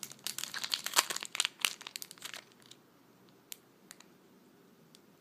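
Foil wrapper of a Pokémon TCG booster pack crinkling as it is handled and opened: a dense run of crackles for about two and a half seconds, then only a few scattered clicks.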